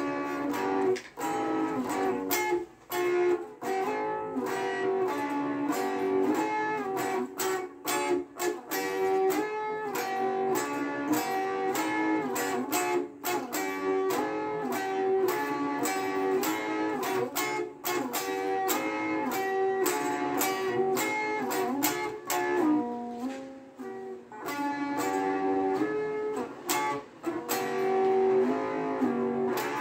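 Stratocaster-style electric guitar played through an amplifier: fast picked single-note runs and riffs, with a short lull about three quarters of the way through.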